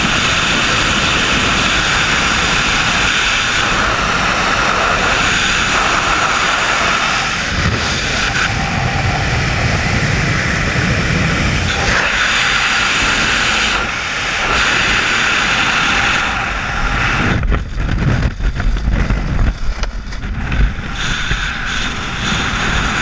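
Loud, steady wind rushing over a helmet-camera microphone in wingsuit freefall. In the last several seconds it turns gusty and uneven, buffeting in and out.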